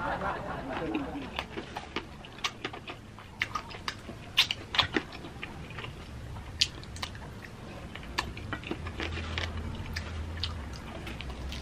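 Close-up chewing of crispy Jollibee Chickenjoy fried chicken, with irregular sharp crunches and crackles from the breading.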